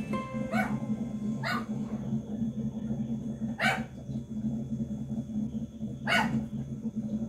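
A dog barking four times, with single short barks spaced unevenly a second to two and a half seconds apart, over a steady low hum.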